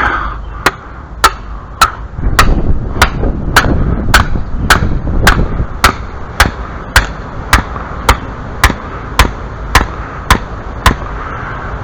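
Hammer striking steadily, about nineteen sharp, evenly spaced blows a little under two a second, driving a stake into the ground.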